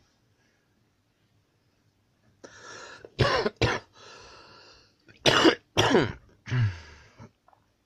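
A person close to the microphone coughing: after a breath in, five loud coughs in two bouts starting about three seconds in.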